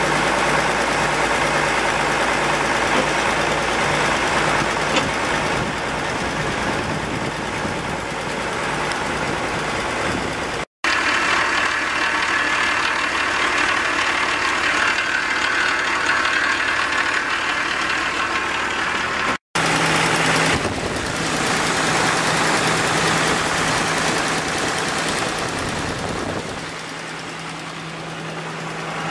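Case 970 Agri King tractor engine running steadily, with a pulsing beat in the first few seconds. The sound cuts out briefly twice.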